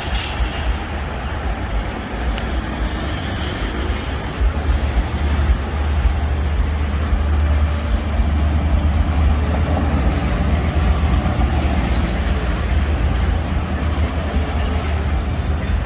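Road traffic passing on a busy road, with cars and trucks going by, and wind buffeting the microphone in a heavy low rumble. The traffic grows a little louder about a third of the way in.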